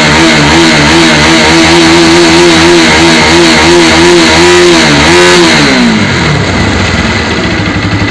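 Bajaj Pulsar NS200's single-cylinder engine revved and held at high revs, dipping and blipping briefly near five seconds, then dropping back to idle about six seconds in. It runs smoothly with no tappet tick, after its valve guides, valves and timing chain parts were renewed.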